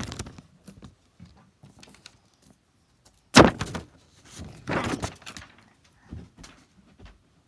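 Knocks and handling noises in a small room, with one loud thunk a little over three seconds in and a rustling stretch around five seconds.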